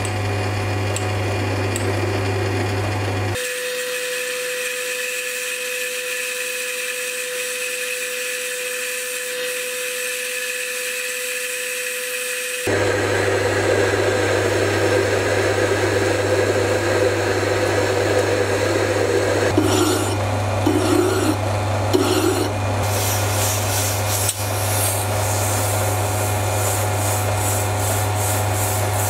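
Sieg C3 mini lathe running with its motor hum while a steel tool post stud is centre-drilled and turned. From about two-thirds of the way through, an abrasive strip rubs against the spinning stud in a series of pulsing strokes as it is polished.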